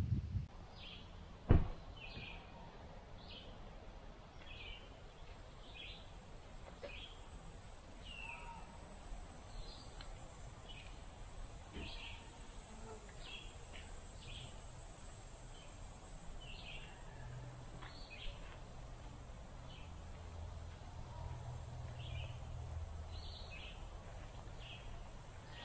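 Faint summer woodland ambience: a high, steady insect trill with short breaks, and a bird giving short chirps about once or twice a second. A single sharp thump about a second and a half in.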